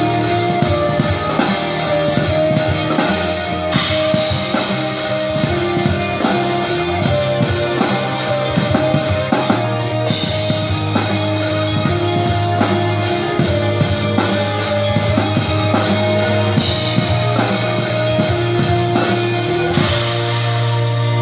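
Two drum kits played live, with cymbal crashes and drum hits, along with a recorded backing track of a song that carries guitar and bass.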